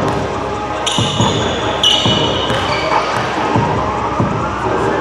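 Basketball game on a hardwood court: the ball bouncing in repeated thuds over a murmur of players' and spectators' voices, with two sharp high-pitched squeaks about one and two seconds in.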